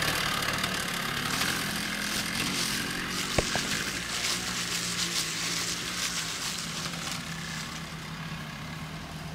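Rokon Trailbreaker two-wheel-drive motorcycle's engine running at low speed as it goes down a steep slope, a steady low engine note that fades as the bike moves away. A single click about three and a half seconds in.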